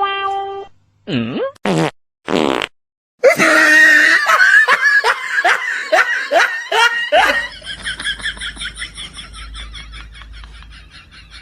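A few short fart-like noises, then laughter: rising laugh calls about two a second that turn into quick, fading giggles.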